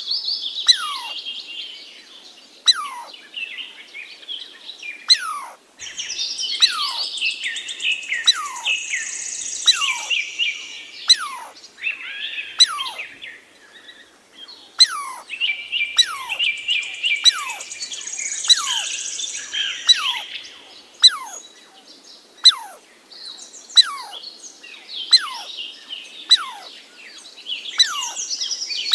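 Birds singing: bouts of dense twittering chirps, with a falling whistled note repeated roughly once a second throughout.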